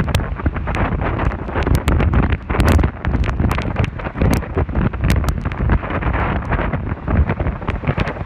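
Hurricane wind buffeting the microphone: a loud, constant low rumble broken by frequent sharp crackles.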